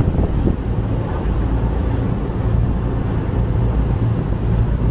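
A small passenger ferry's engine running steadily as a low drone, with wind buffeting the microphone on the open deck.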